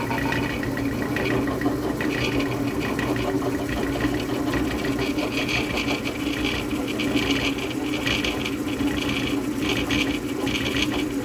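Drill press running, its twist bit cutting a hole through a chrome-plated steel bar. There is a steady motor hum under a rough, wavering grinding of the bit in the metal.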